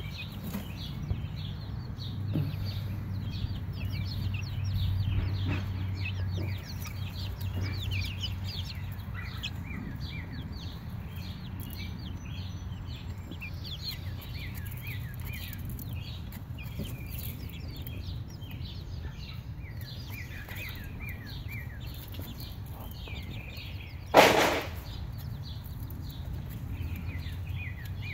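Baby silkie chicks peeping, a steady stream of short, high chirps, over a low steady hum. About 24 seconds in, a single loud bump is the loudest sound.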